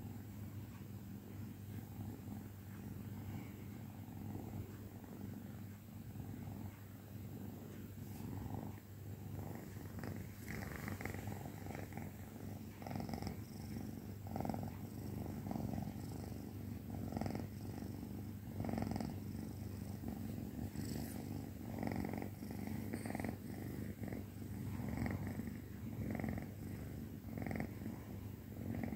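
Kitten purring steadily at close range. The purr swells and eases with each breath, more markedly from about a third of the way in.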